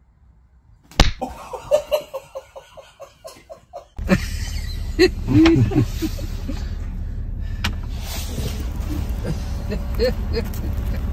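A sharp slap about a second in, followed by a run of laughter that fades out over a few seconds. It cuts abruptly to the steady low rumble of a vehicle's cabin.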